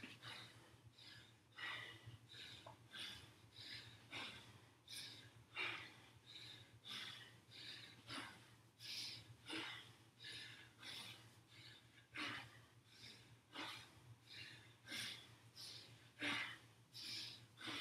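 Faint, hard breathing of a person mid-exercise: short, sharp puffs of breath one to two times a second, over a faint steady hum.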